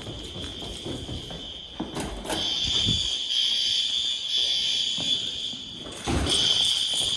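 Fire alarm horns of a Notifier NFS2-640 school fire alarm system sounding a high-pitched tone during a drill. The tone gets much louder about two seconds in, and there is a thump about six seconds in.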